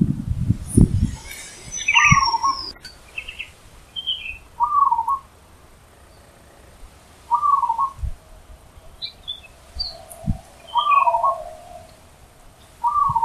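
Zebra dove (perkutut) cooing: a short phrase of soft notes repeated about every two and a half seconds, five times. Small birds chirp higher up between the phrases, and a few low thumps are heard, the loudest in the first second.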